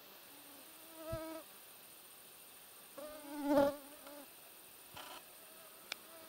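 A fly buzzing close past the microphone twice, each pass swelling and fading over about a second, the second one louder. A faint click near the end.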